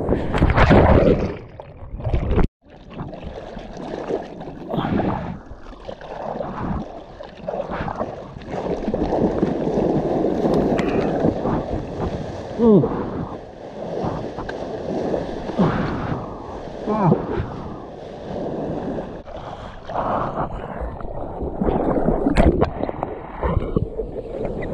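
Breaking surf and whitewater rushing and splashing right against a GoPro held in a surfer's mouth, so the water sound is close and surging. The sound cuts out briefly about two and a half seconds in.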